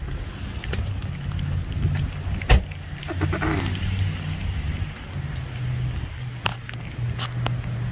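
Getting out of a car in the rain: a car door shuts with one loud thump about two and a half seconds in. Scattered small clicks of rain and footsteps on wet asphalt run over a steady low rumble on the phone's microphone.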